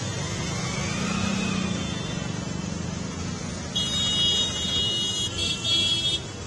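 Road traffic moving through a flooded street: engines running under a steady wash of noise. A vehicle horn sounds two long blasts in quick succession, starting about four seconds in.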